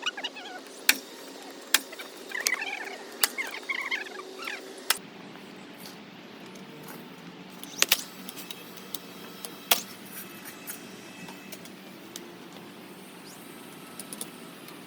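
Sharp knocks at irregular intervals over a steady background hum, with short chirps between about two and four seconds in.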